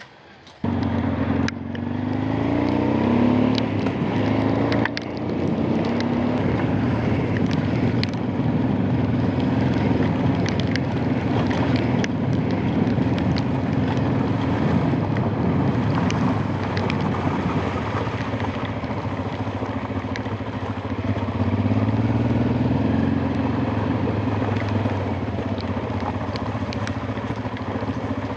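Honda Transalp V-twin motorcycle engine running under way, cutting in abruptly about half a second in. Its pitch climbs under acceleration early on and again near the end, with a steady rush of wind and road noise.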